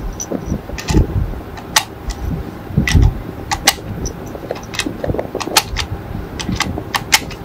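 .308 Winchester cartridges being pushed one by one into a rifle magazine: a string of sharp, irregular metallic clicks as each round seats, with a few dull bumps of the magazine being handled.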